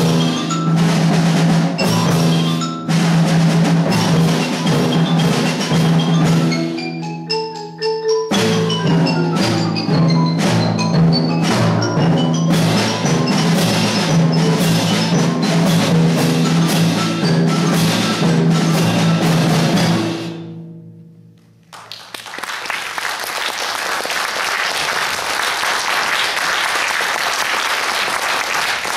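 Percussion ensemble playing quick runs on marimba, xylophone and glockenspiel over drums and timpani; the music ends and dies away about two-thirds of the way through. After a brief lull, an audience applauds.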